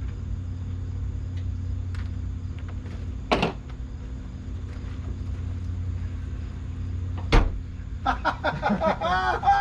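Two sharp bangs about four seconds apart over a steady low hum, then a quick run of short wavering higher-pitched sounds near the end.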